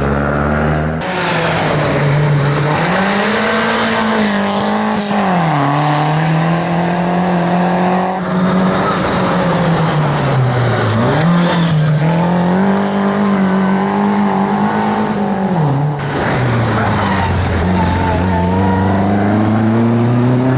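Rally car engines revving hard and easing off through slides, the pitch climbing and dropping over and over. The sound changes abruptly a few times, as one car's run gives way to another's.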